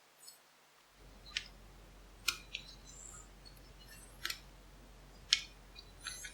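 Lock picks working inside an old four-lever padlock: a handful of sharp, light metallic clicks at irregular intervals.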